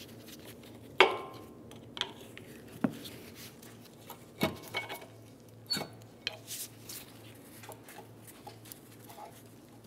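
Small steel pry bar knocking and levering a stuck, rusted front brake pad off the disc rotor: a series of irregular sharp metal clinks and knocks, the loudest about a second in, then only light clicks as the pad is worked loose by hand.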